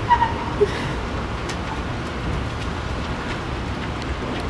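Steady rain falling on wet pavement, an even hiss. Two brief sharp sounds stand out in the first second.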